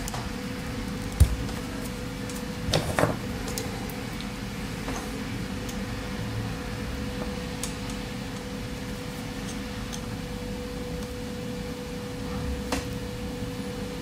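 Small clicks and scrapes as a pocket knife works at a braided USB cable's fabric sleeve and insulation: a sharp click about a second in and a short clatter of small knocks near three seconds. Under them runs a steady low hum with a faint steady tone.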